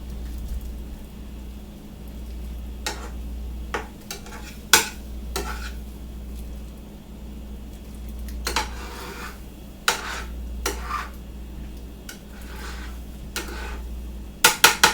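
A utensil stirring and scraping egg stir fry in a pan, with scattered clinks and scrapes and three quick sharp knocks against the pan near the end, over a steady low hum.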